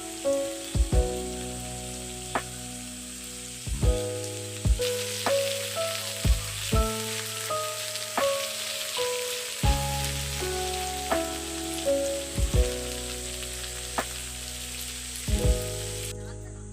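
Melodic background music with a bass line, over a steady hiss that cuts off suddenly near the end.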